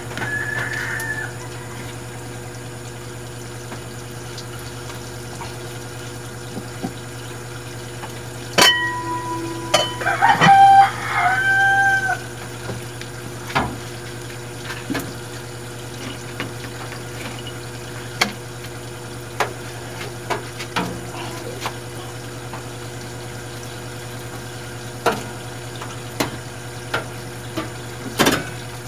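A rooster crowing in the background, briefly at the start and again about nine to twelve seconds in, over a steady low hum with scattered small clicks.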